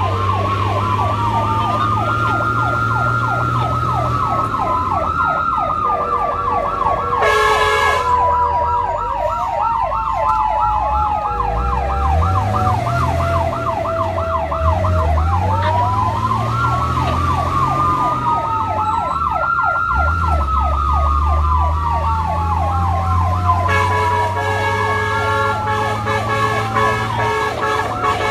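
Emergency vehicle sirens sounding: a fast yelp and a slower rising-and-falling wail go together, with a horn blast about seven seconds in and a horn sounding again near the end. An engine runs underneath.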